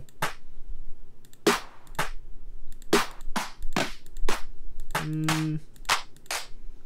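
Electronic drum-machine clap samples auditioned one after another, a string of single sharp clap hits with short, uneven gaps between them.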